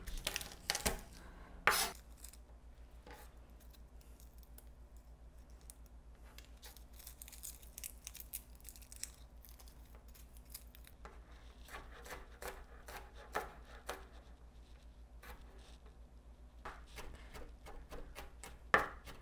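Garlic being prepared with a chef's knife on a plastic cutting board: two sharp knocks of the knife about one and two seconds in, then faint rustling and scratching as the papery skins are peeled off the crushed cloves by hand, and light, quickening knife taps on the board as the garlic is minced near the end.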